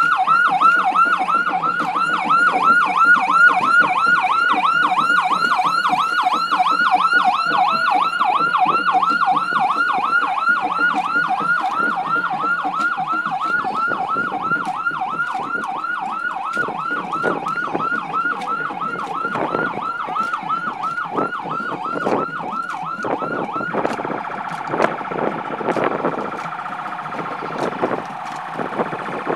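Vehicle siren yelping: a fast rising-and-falling wail repeated about five times a second. It grows fainter after about fifteen seconds and changes to a steadier tone near the end, with a run of sharp clicks over the second half.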